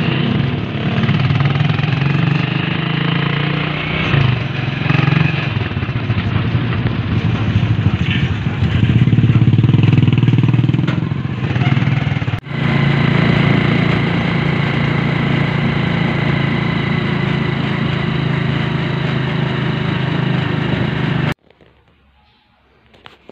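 Motorcycle engine of a tricycle running under way, heard from inside its sidecar, its note swelling and easing with the throttle. It breaks off for an instant about halfway, and about two seconds before the end it cuts off suddenly to the quiet of a room.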